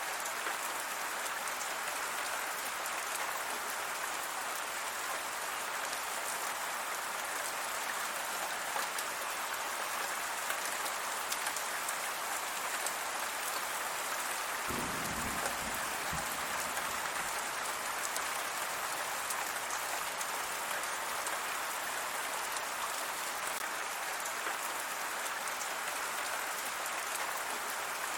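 Steady rain falling: an even hiss with a fine patter of drops. About halfway through, a brief low rumble lasts a second or so.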